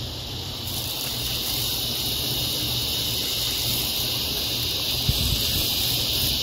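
Cicadas droning steadily in a high, even chorus that swells over the first second or so, over water from a watering can's rose pouring onto sandy soil.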